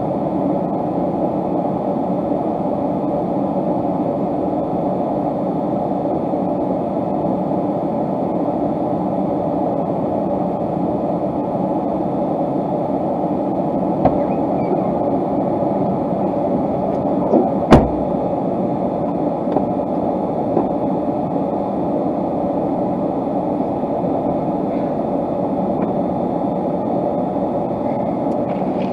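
Pickup truck driving on a snowy farm track, heard from inside the cab: a steady low road and engine rumble, with a sharp knock about halfway through and a couple of lighter ones.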